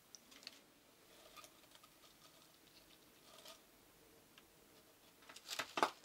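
Faint scattered clicks and light rustles of hands working with a tin can of melted wax over wood-wool firelighters, with a short run of sharper clicks near the end.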